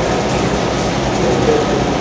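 Steady hum and rushing air noise of ventilation machinery running, such as fume extractors or fans, loud and unbroken.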